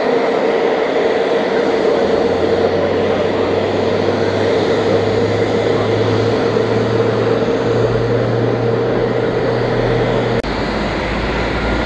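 Boeing AH-64E Apache attack helicopter running on the ground: the twin turboshaft engines give a loud, steady whine over rotor noise, and a low hum joins in about two seconds in. The whine drops out abruptly near the end.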